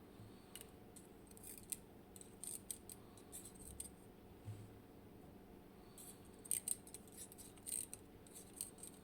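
Light metallic clicks and clinks, coming in scattered clusters, as the small steel parts of a disassembled M&C Matrix lock cylinder are handled and the driver pins are taken out.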